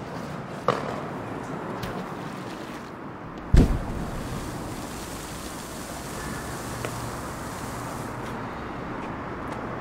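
A small bomb going off in the water: a single dull boom about three and a half seconds in, over a steady hiss of outdoor background noise, with a short sharp click less than a second in.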